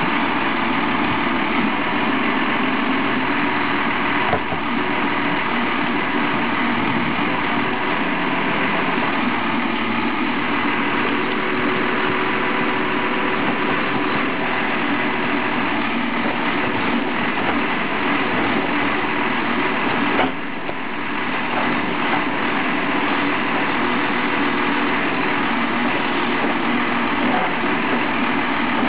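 Volvo BM 6300 backhoe loader's diesel engine running steadily, with a brief knock about four seconds in and another about twenty seconds in.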